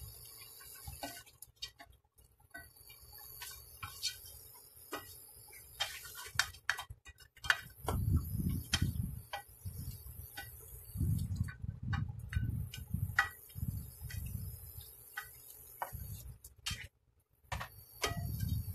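A plastic spoon stirring and turning chunks of meat on the bone in a pot, with irregular clicks and taps of the spoon against the pot. Dull thuds come in clusters as the pieces are shifted, about a third of the way in, in the middle and near the end.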